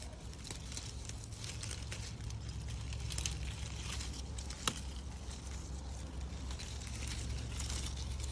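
Grapevine leaves and grape bunches rustling and crackling as a hand picks through them close to the microphone, with one sharp snap about halfway through, over a steady low rumble.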